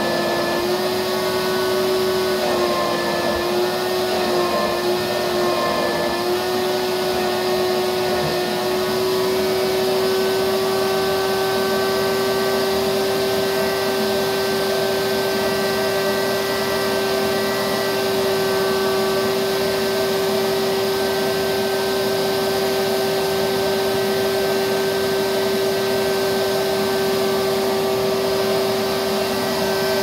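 Shop vac running continuously, its hose sucking at the fabric of a long dress. The motor's steady hum wavers slightly in pitch for the first eight seconds or so, then holds level.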